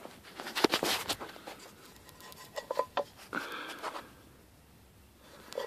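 Scattered light clicks, taps and rustles of handling, with a stretch of near silence about four seconds in.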